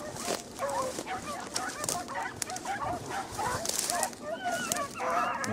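A pack of rabbit-hunting beagles baying in the distance: many short, overlapping, rising-and-falling cries. This is the hounds giving tongue as they run a rabbit's scent line.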